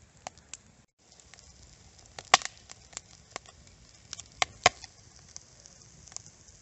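Wood fire crackling: Finnish log candles, split logs burning from the top, giving off scattered sharp pops. The loudest pop comes about two seconds in, and two more come a little past four seconds.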